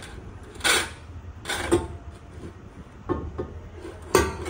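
A blue-and-white porcelain vase being turned by hand on a wooden shelf: a few short scrapes and knocks of its base against the wood.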